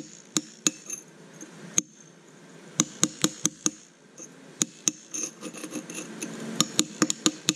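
Hammer blows on a steel cold chisel chipping out a pitted spot in a concrete floor. Sharp metallic strikes come in quick runs of two to five, with short pauses between, the busiest run near the end.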